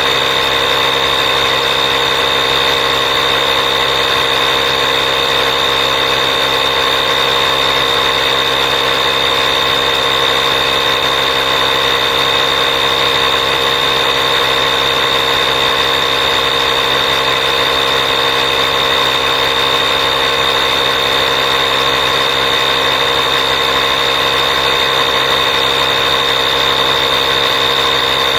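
A machine running steadily and unchanging: a constant mechanical hum with a high whine.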